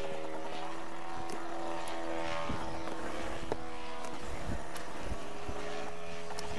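Engine and propeller of a radio-controlled scale Christen Eagle biplane model running steadily in flight, a droning buzz holding an even pitch.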